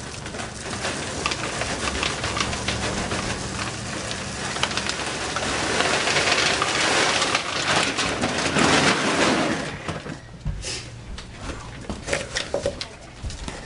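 Dry dog kibble pouring from a bag into a plastic storage bin: a dense rattling patter that is heaviest from about six seconds in, then thins to scattered clicks near the end.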